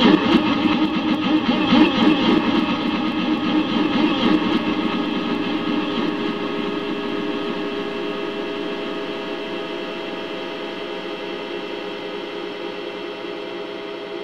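Yamaha PSR-E233 keyboard sound effect layered over itself thousands of times into one dense, buzzing mass. It starts with rapid fluttering pulses and settles after a few seconds into a steady chord that slowly fades.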